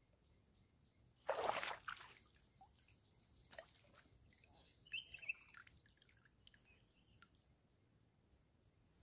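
A hooked fish, likely a wild Nile tilapia, splashing at the water surface: one loud splash about a second in, then a few smaller splashes and drips.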